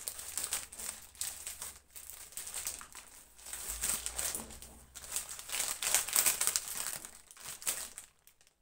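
Plastic courier mailer bag crinkling and rustling as it is cut open with scissors and pulled apart by hand, then a plastic-wrapped package is drawn out. The rustling is irregular and stops near the end.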